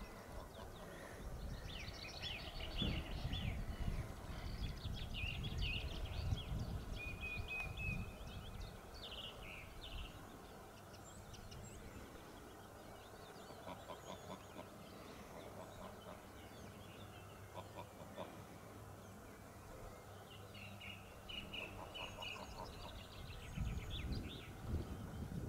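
Goslings peeping in bursts of short, high, thin calls, busiest in the first ten seconds and again near the end, over a low wind rumble on the microphone.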